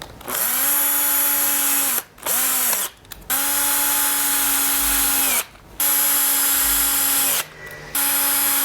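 Power drill driving a 3 mm hex bit in five separate runs, one of them brief, tightening the screws that hold the skateboard wheel's split rim together. Each run spins up with a short rise in pitch, holds a steady whine, then winds down.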